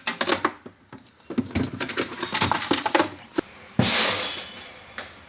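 Hands handling plastic refrigerator accessories and packaging: a run of light clicks and knocks, then a loud rustle or crinkle about four seconds in.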